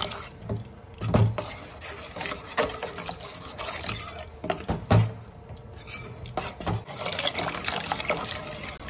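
Water poured in a thin stream into frying masala in a pan, splashing and gurgling as a steel spoon stirs it into a gravy, with two louder knocks of the spoon about a second and five seconds in.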